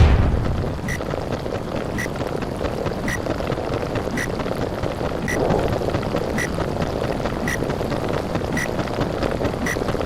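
Underwater ambience sound effect: a steady muffled rush of water, with a short high blip repeating about once a second.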